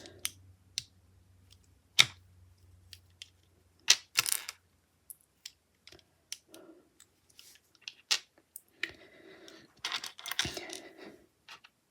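Plastic Lego bricks clicking and rattling as pieces are handled and pressed together: scattered sharp clicks, a few louder ones, with short bursts of rummaging.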